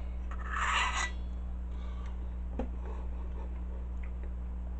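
A spoon scraping once, briefly, about half a second in, followed by a few faint light clicks, over a steady low electrical hum.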